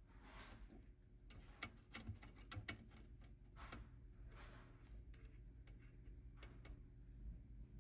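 Near-silent room tone with a scatter of light, sharp clicks and taps, bunched about one and a half to three seconds in, then a few more: handling noise from multimeter probes being set on a resistor's leads to measure its resistance.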